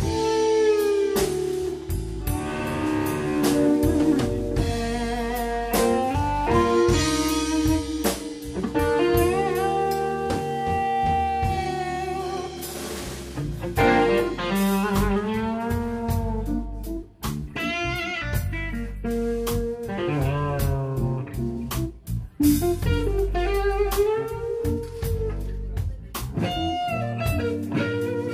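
Live blues-rock instrumental: an overdriven electric guitar plays a slow lead melody with string bends and vibrato over electric bass, drum kit and Rhodes electric piano.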